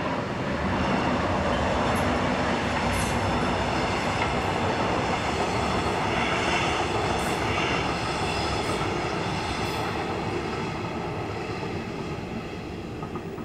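Diesel-hauled Metronom double-deck passenger train with a Bombardier TRAXX class 246 locomotive passing, its wheels rumbling along the rails. The sound is loudest in the first half and fades slowly as the train moves away.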